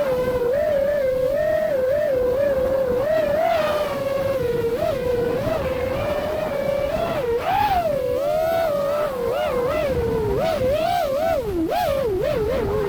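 FPV quadcopter's motors whining steadily, the pitch constantly rising and falling with throttle changes and swooping more widely in the second half, over a low rushing noise.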